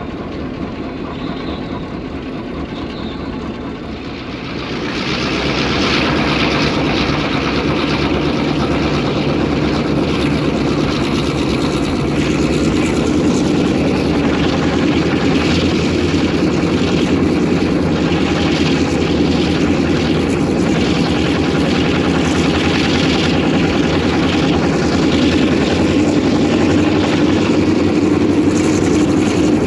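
EMD 567-series two-stroke, Roots-blown diesel locomotive engine under way. It is running at a lower level, throttles up about four to five seconds in, then works steadily and loudly under load.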